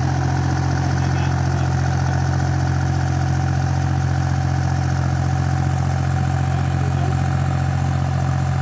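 Engine of a small backhoe running steadily with an even, low drone and no change in speed.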